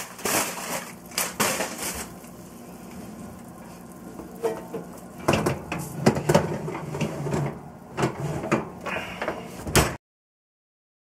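Aluminium foil crinkling as it is pulled off a glass roasting dish, then a quieter stretch with a low steady hum, then knocks and clattering of the glass dish and oven rack. The sound cuts off suddenly near the end.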